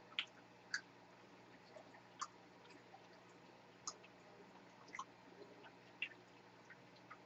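Faint chewing of cake close to the microphone: scattered small mouth clicks, about one a second, over near silence.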